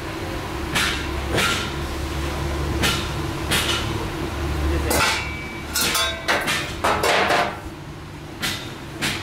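Hammer striking a steel bench frame on a steel welding table: about a dozen irregular metal knocks, some ringing briefly, with a quick run of blows between about six and seven and a half seconds in.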